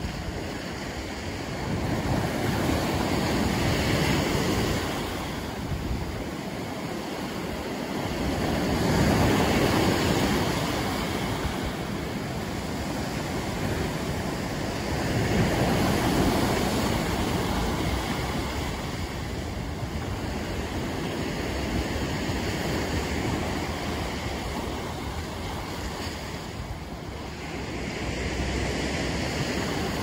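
Sea waves breaking on rocks and washing up a sandy beach, with steady surf noise that surges every six seconds or so. One wave crashes hard against the rocks about halfway through.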